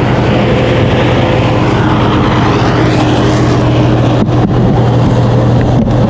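Steady, loud motor hum with a strong low drone. A few short knocks come about four seconds in and again near the end.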